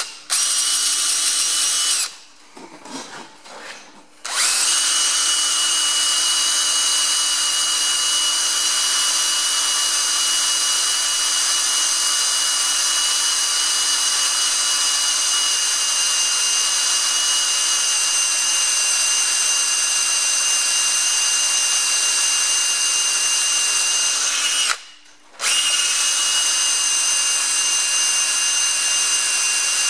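Makita 18V cordless drill boring a 3/8-inch hole through a metal collar into the hydraulic press ram's adapter, running at a steady speed. It stops briefly about two seconds in and again near the end, then carries on drilling.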